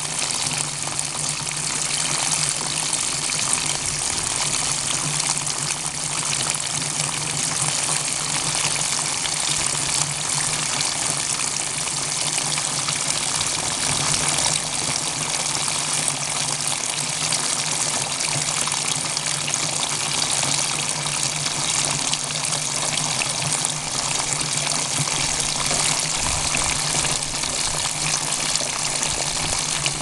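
Water gushing steadily in two streams from a leak in a hooped wooden barrel and splashing onto the grass and weeds below.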